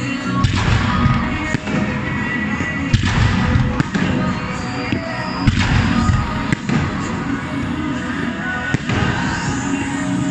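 Fireworks display: aerial shells bursting in sharp reports every second or two, over loud music played for the show.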